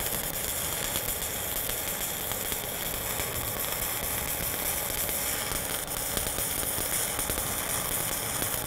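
Stick welding arc running steadily as a hard-facing electrode lays a bead on steel plate: an even sizzle that doesn't snap hard, with the welder on its 7018 setting and the arc set very soft.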